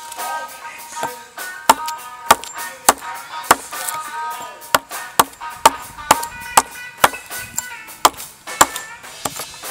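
Axe chopping into birch in quick, regular strikes, about two a second, over guitar music.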